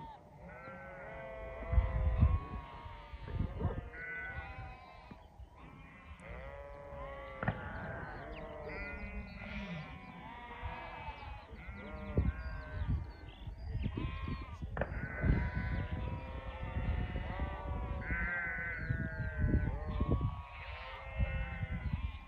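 A flock of sheep bleating, with many overlapping calls all through and several brief low rumbles in between.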